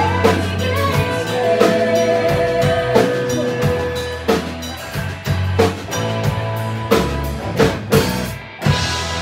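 Live country band playing: drum kit hits, bass and strummed acoustic guitar, with a woman singing a long held note in the first few seconds. The band cuts out for a moment near the end, then the guitar carries on.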